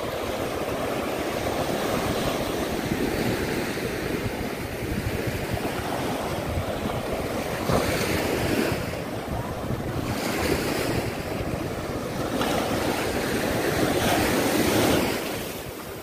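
Small sea waves breaking on a sandy shore and washing up the sand and around rocks, a continuous surf hiss that swells with each wash, the strongest surge coming a little before the end.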